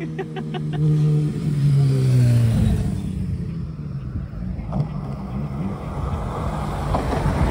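A motorcycle approaches and passes close by, its engine note dropping in pitch as it goes past about two and a half seconds in. A pickup truck then drives past with engine and tyre rumble.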